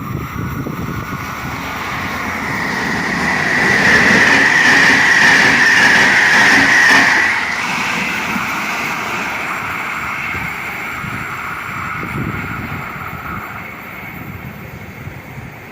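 CP Intercidades passenger train passing at speed, its rushing and rolling noise building to a loud peak about four to seven seconds in, then fading away.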